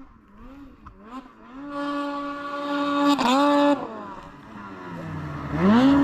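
Snowmobile engine revving: the pitch wavers at first, holds a steady high rev from about two seconds in until nearly four, then climbs and drops again in one rev near the end.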